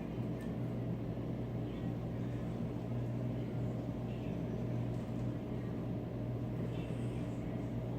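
Steady low droning hum, like a running motor, with a few faint short squeaks over it.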